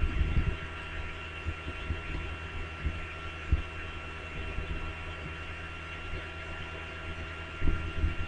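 Steady electrical hum with a faint high-pitched whine, broken by a few soft low thumps: one at the start, one about three and a half seconds in, and a cluster near the end.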